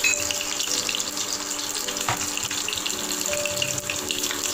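A crushed shallot sizzling and crackling as it fries in hot coconut oil in a pan. Soft background music with held notes plays underneath.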